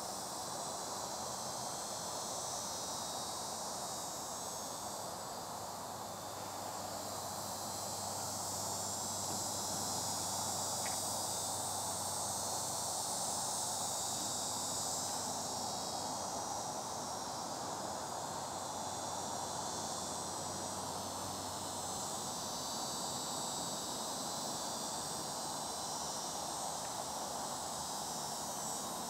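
Steady, high-pitched outdoor insect chorus droning without a break.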